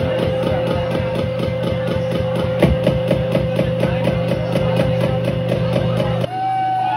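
Live punk band playing loud, with a fast steady drum beat under a sustained high note. The music cuts off suddenly about six seconds in, leaving one held tone that slides downward.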